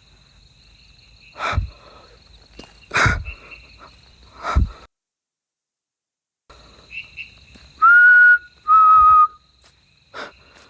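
Two loud, steady whistled notes about a second apart, the second slightly lower, over a constant high-pitched chirring of night insects. Earlier, three dull thumps.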